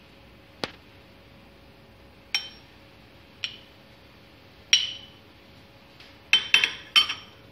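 Metal tablespoon clinking against a small ceramic bowl as spoonfuls of sauce are tipped in: about seven short, sharp clinks, each ringing briefly, the last three close together near the end.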